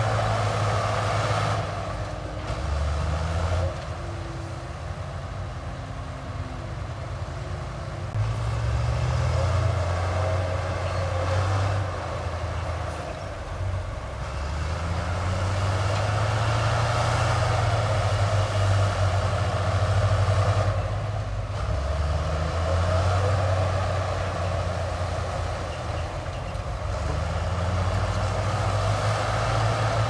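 Heavy diesel engine of earth-moving machinery running under changing load, its note dropping and rising again every several seconds.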